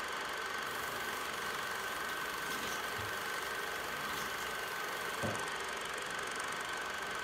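Steady hum with a constant high-pitched tone running under it, and one soft low thump about five seconds in.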